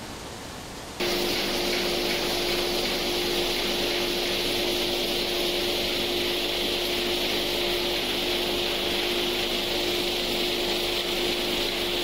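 Vibrating feeder carrying shredded aluminium can scrap: a steady machine hum with a dense hiss of metal flakes sliding. It sets in abruptly about a second in, over a quieter steady hiss.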